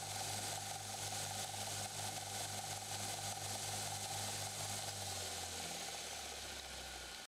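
Combination bench grinder and belt sander running with no work against it, a steady motor hum under belt hiss. About five seconds in, the hum drops in pitch as the machine spins down after being switched off.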